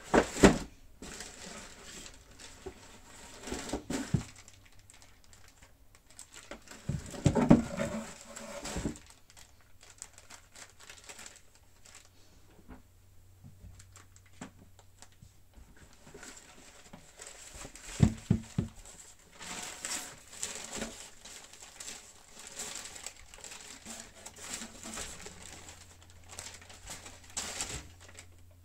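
Cardboard shoebox and lid being handled, with a few loud knocks and bumps, the biggest cluster about a quarter of the way in and another just past the middle. Tissue paper rustles and crinkles through much of the second half.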